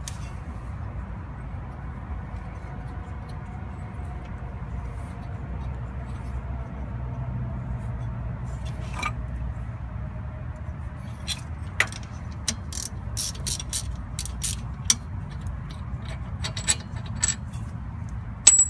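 Ratchet wrench backing out the wheel hub assembly's mounting bolts: a steady low rumble at first, then from about halfway through a run of sharp metallic clicks, several a second.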